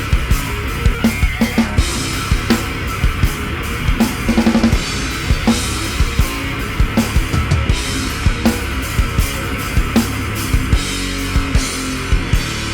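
Live punk rock band playing an instrumental passage with no singing: electric guitar, bass guitar and a busy drum kit, with a quick run of drum hits about four seconds in.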